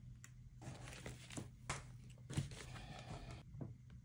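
Quiet desk-handling sounds: faint rustling and a few light knocks as objects are moved and set down on a wooden desktop.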